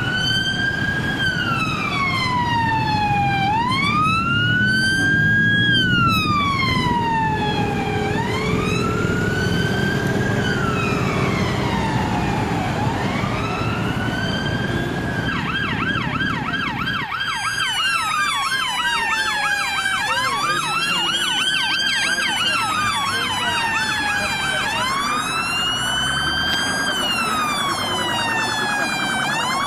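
Police sirens wailing, rising and falling about every two and a half seconds. About halfway through, a second siren with a much faster warble joins in. Vehicle engines rumble underneath in the first half.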